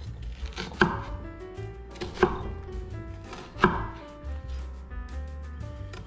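Chef's knife coarse-chopping an onion on a plastic cutting board: three sharp knife strikes against the board about a second and a half apart, with lighter cuts in between.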